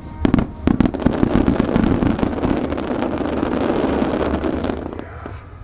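Aerial fireworks bursting: a few separate sharp bangs, then a dense run of rapid crackling reports that lasts about four seconds and drops away near the end.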